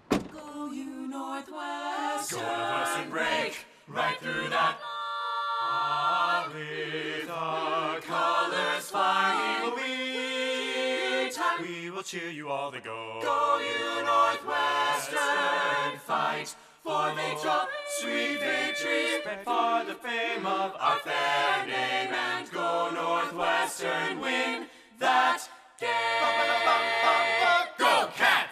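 Group of voices singing unaccompanied in harmony, a cappella style, with a few brief breaks.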